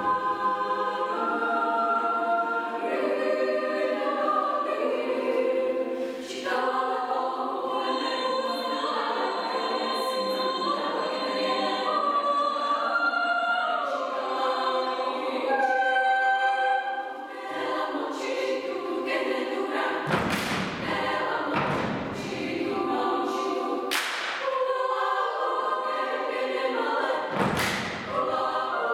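Women's choir singing an Indonesian folk song a cappella in several parts, punctuated a few times by sharp body-percussion hits from the singers.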